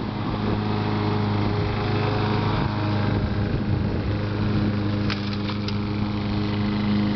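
Gas walk-behind lawn mower's small engine running steadily as it is pushed across the grass, cutting the lawn, with a few brief clicks a little after five seconds in.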